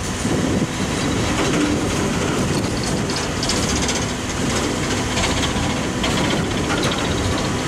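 Coal hopper cars rolling steadily past at close range: a continuous rumble of steel wheels on rail, with the clickety-clack of wheels passing over rail joints.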